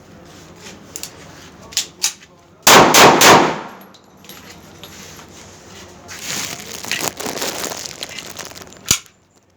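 A .30 bore (7.62×25 mm) pistol: a few metallic clicks of handling, then about three loud shots fired in quick succession about three seconds in, followed by more handling noise and one sharp click near the end.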